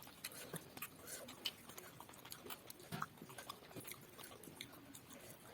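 Faint eating sounds: scattered soft clicks and wet smacks of chewing rice and fish curry eaten by hand.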